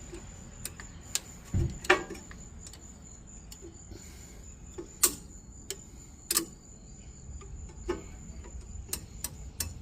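Irregular metal clicks and knocks from a brake caliper piston compressor tool being worked to push the caliper piston back into its bore.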